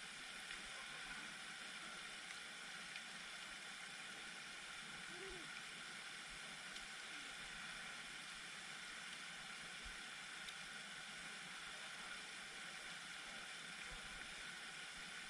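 Faint, steady hiss of a pond fountain aerator's spray splashing onto the water.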